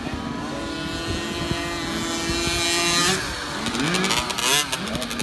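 Several 50cc two-stroke motocross bikes racing, one held at a steady high rev for the first few seconds, then engines revving up and down as they accelerate and shift.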